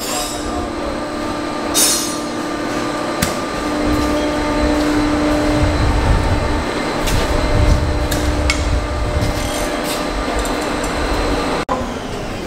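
Steady mechanical running noise with a low rumble and a hum, broken by several sharp metal knocks, as the John Deere 7200R's adjustable rear axle is walked out through the wheel hub.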